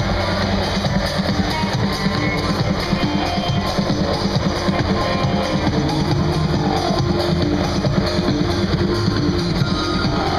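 Loud music with guitar and drums, played over outdoor loudspeakers.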